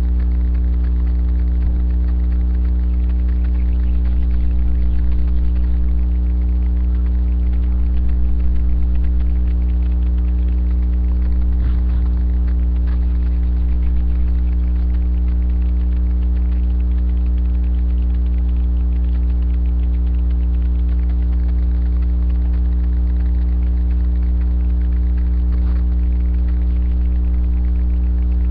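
Loud, steady electrical hum with evenly spaced overtones, typical of mains hum picked up through a webcam's microphone. A faint knock about twelve seconds in.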